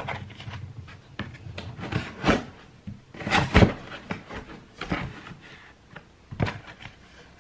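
Cardboard shipping box being handled and pulled open by hand: a string of short scrapes and rustles of the cardboard, the loudest about three and a half seconds in.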